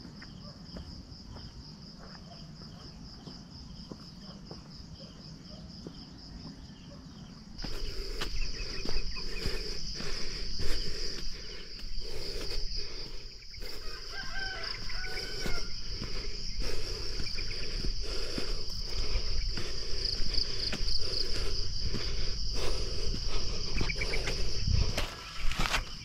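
Insects buzzing steadily at a high pitch, joined about a third of the way in by a person's footsteps crunching on a rocky dirt path, with a few bird calls in the middle.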